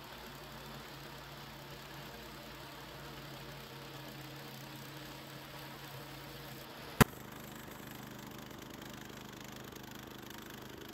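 Gas engine of a Harbor Freight portable bandsaw mill running steadily. A single sharp click about seven seconds in.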